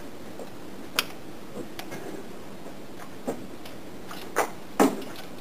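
A handful of sharp clicks and light knocks from a hex key and metal parts as the screws holding a motor to an AndyMark Toughbox gearbox are tightened down, the loudest two near the end.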